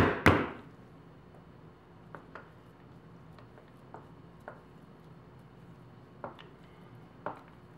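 A spoon knocking sharply against the rim of a pan near the start, then faint, scattered clicks and soft scraping as a spoon scoops and swirls thick soap batter in a paper-lined loaf mould.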